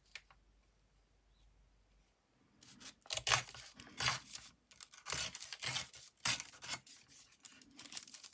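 Craft paper being torn by hand in a run of short rips, starting about two and a half seconds in.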